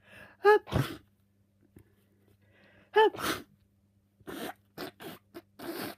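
A person with a cold sneezing twice, uncovered and wet, each sneeze a short pitched 'ah' followed by a noisy 'choo' burst, about two and a half seconds apart. Several shorter, quieter breathy sounds follow in the last two seconds.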